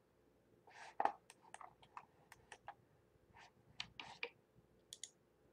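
Faint, irregular clicking of a computer mouse and keyboard in use, a dozen or more short clicks, loudest about a second in.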